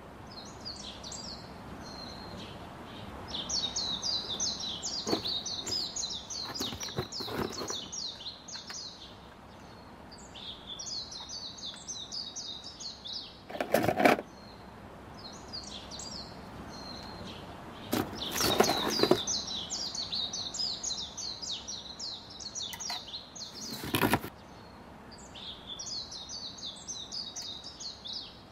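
Small birds chirping in quick twittering runs that come and go. Over this are knocks and rustles of cardboard and plastic toy parts being handled, the sharpest about halfway through and near the end.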